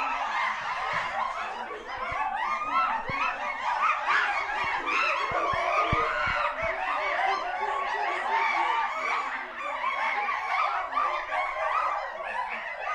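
A group of chimpanzees calling at once: a dense, unbroken chorus of short, quick rising-and-falling cries and chatter.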